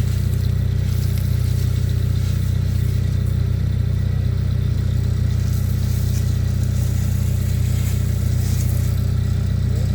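Vermeer mini skid steer's engine running at a steady speed.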